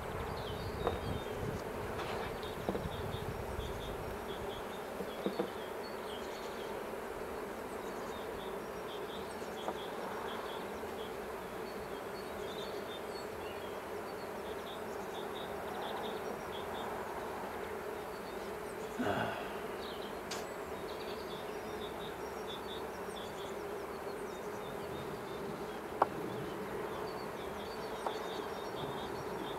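A honeybee colony buzzing over an open hive: a steady hum. Scattered short clicks and knocks as frames and a tool are handled on the wooden box, the loudest a single sharp click about four seconds before the end.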